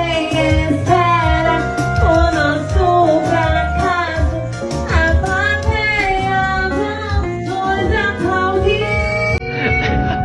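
A song with a singing voice over a steady beat.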